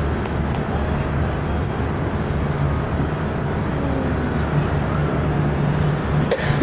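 Steady, dense rumble of a large fireworks display mixed with crowd noise, with one sharper bang or crackle near the end.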